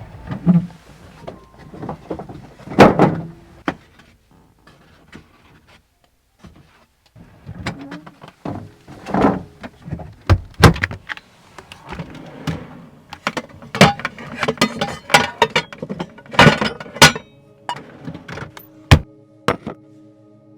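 Irregular clunks, knocks and clatter of cookware and utensils being handled while preparing breakfast, with a few sharp, loud thuds.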